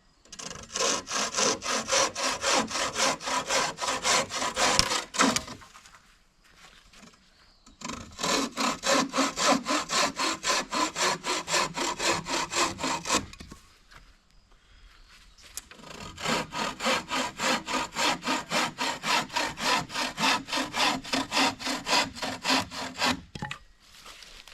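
Hand saw cutting through a downed tree's wood in quick back-and-forth strokes. It runs in three spells of steady sawing, stopping twice for a couple of seconds.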